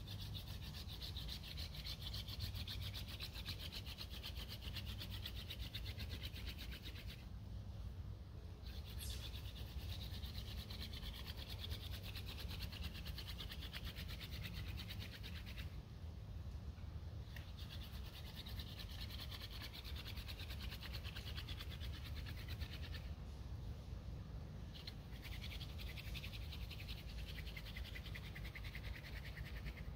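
Wooden hand-drill spindle spun between the palms against a pine hearth board to make a friction fire: a fast, scratchy wood-on-wood rubbing. It stops briefly three times, a little after 7, 15 and 23 seconds in, then picks up again.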